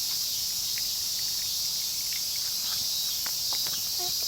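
Steady, high-pitched chorus of insects chirring, with scattered faint ticks.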